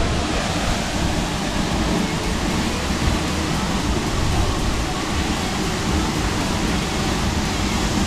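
A waterfall rushing close by: a loud, steady noise of falling water with no let-up.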